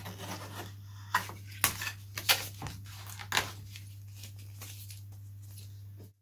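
Scalpel cutting and covering being peeled and torn off a balsa model-aircraft wing: a handful of sharp rustling tears in the first three and a half seconds, over a steady low hum. After that only the hum remains, and the sound cuts off abruptly just before the end.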